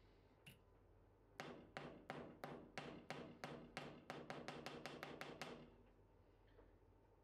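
Small hammer tapping a can opener's metal cutting blade clamped in a bench vise. One tap comes first, then, about a second and a half in, a run of about twenty sharp metal-on-metal taps that get quicker and quicker before stopping.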